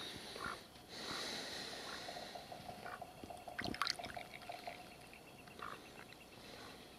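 Mallard drake dabbling its bill at the water's surface: small splashes and drips, with one sharper splash about halfway through.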